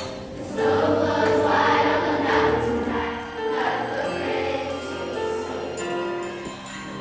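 Children's choir singing over a sustained instrumental accompaniment, the voices coming in strongly about half a second in.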